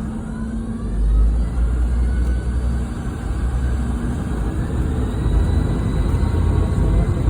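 Boeing 717-200's rear-mounted Rolls-Royce BR715 turbofans heard from inside the cabin: a steady engine and airframe rumble that grows deeper and louder about a second in, with a faint rising whine above it.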